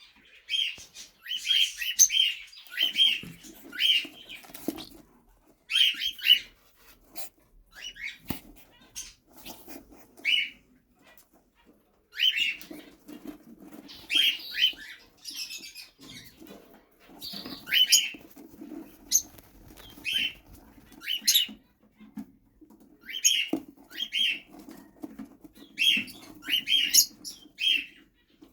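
Pet cockatiels calling: short, bright chirps repeated in quick runs of two to five, with short pauses between runs.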